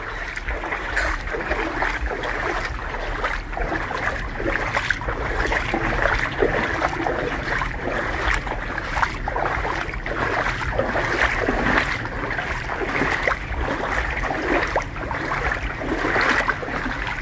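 Footsteps wading through floodwater in a street: water sloshing and swishing around the legs with each stride, in an irregular repeating rhythm.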